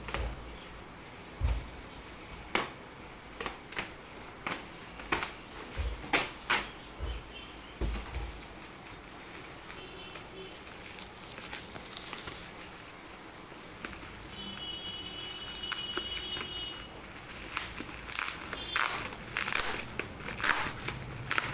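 Packing material around a keyboard being handled and unwrapped: crinkling and rustling with scattered clicks and knocks.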